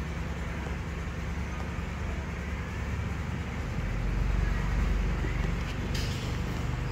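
Mother cat purring steadily while her kittens nurse, a low rumble that swells a little about four seconds in.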